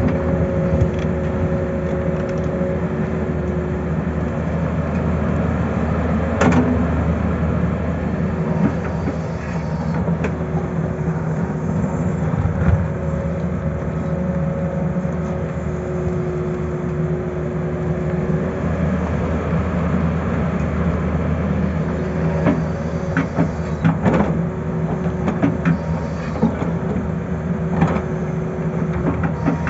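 Tata Hitachi hydraulic excavator's diesel engine running steadily under digging load, with a whining tone that comes and goes as the arm works. The bucket scrapes through soil and rock, with a few sharp knocks, the loudest about six seconds in and near the end.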